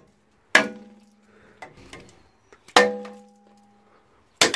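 Three sharp metal taps, each followed by a ringing that dies away over about a second, as a rusted parking-brake shoe on a 2003 Dodge Dakota's rear brake is struck to free it: the shoe is rusted fast to the wheel hub.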